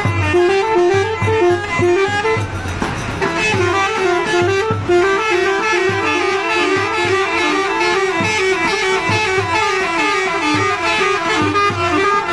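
Tractor's musical air horn playing a fast tune of short, stepping notes, without a break.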